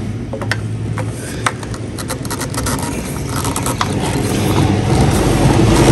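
A PVC pipe being pushed into a sump pump's plastic discharge outlet: scattered scraping and clicking of plastic on plastic. Under it a low rumble grows steadily louder toward the end.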